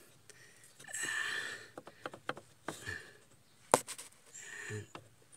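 A few sharp clicks and light knocks from hand work on the clutch pedal pushrod and its retaining clip as they are worked loose, the loudest click a little before four seconds in. Two breathy sniffs come between the clicks.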